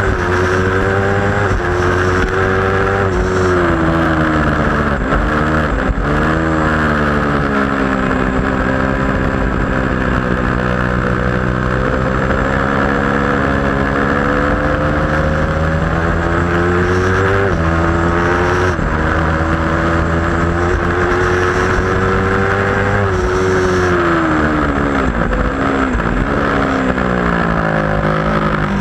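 Onboard sound of a 2010 Aprilia RSV4 Factory's V4 engine at racing speed. Its pitch climbs and falls repeatedly, with sudden drops at gear changes, over steady wind rush.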